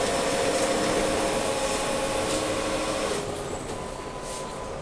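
Cash-deposit ATM whirring steadily as it finishes the transaction and prints the receipt slip, winding down about three seconds in.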